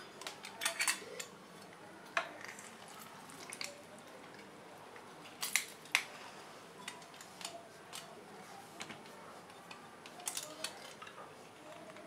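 Hand-held metal lemon squeezer pressing a lime: sharp clicks and clacks from its hinged metal cups, coming in a few short clusters a few seconds apart.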